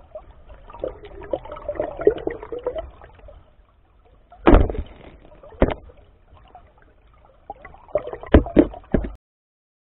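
Creek water gurgling and trickling, heard muffled through an underwater camera's housing, with a few sharp loud knocks, the loudest about halfway through and a cluster near the end. The sound cuts off suddenly about nine seconds in.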